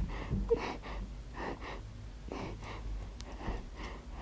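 A voice actor's string of short, gasping breaths, voicing an injured cat in pain.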